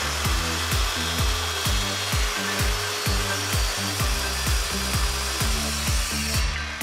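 Circular saw ripping a sheet of plywood, cutting steadily and stopping near the end, over background music with a steady beat of about two strokes a second.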